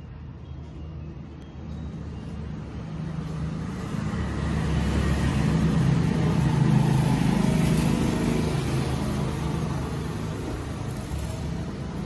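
A low rumble of a passing road vehicle that grows louder to a peak about seven seconds in and then fades.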